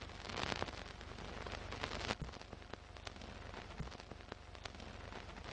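Old-film crackle on a countdown leader: faint hiss with many scattered clicks and pops over a low steady hum.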